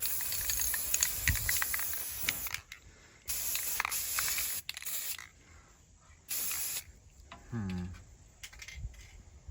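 Aerosol spray paint can hissing in three bursts: a long one of about two and a half seconds, a shorter one, then a brief final puff, as paint is sprayed onto plastic model parts.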